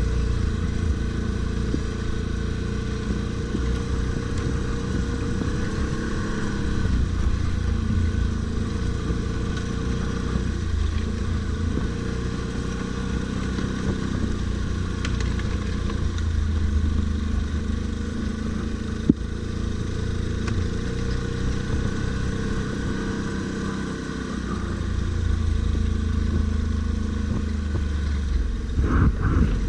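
Stels Guepard 850 ATV engine running off-road under changing throttle, its pitch rising and falling, with one sharp click about two-thirds of the way through.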